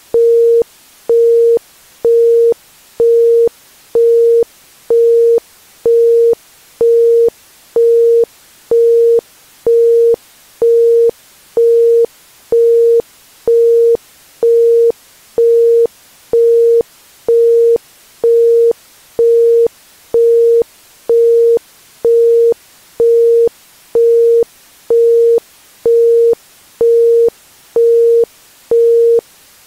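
Isochronic tone: a steady 465 Hz tone pulsing on and off about once a second (1.05 Hz), evenly, over a faint steady hiss.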